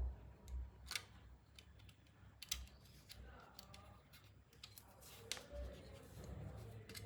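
Faint scattered clicks and light taps of hand tools on small metal and plastic parts, with a few low handling thumps, as a pressure switch's housing and wiring are worked on.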